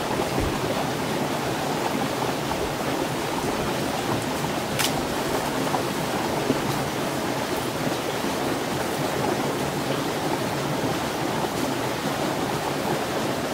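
Steady rush of running water from a stream or small waterfall, even and unchanging, with one brief tick about five seconds in.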